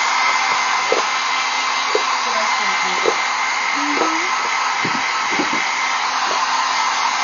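Handheld blow dryer running steadily: a constant rushing hiss of air with a faint steady high whine.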